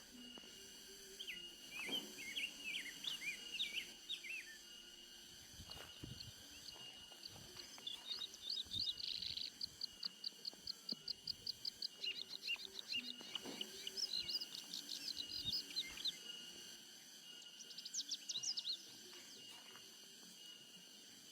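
Birds chirping and singing in phrases. Quick chirps come early on, then a long series of rapid repeated notes from about eight to sixteen seconds in, and a short burst of chirps near the end, over a faint steady background.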